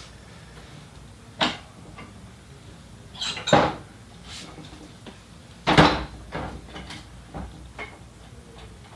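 Scattered knocks and clunks of metal scooter parts being handled as the handlebars are fitted onto the fork over the ICS compression bolt. The loudest knock comes about six seconds in.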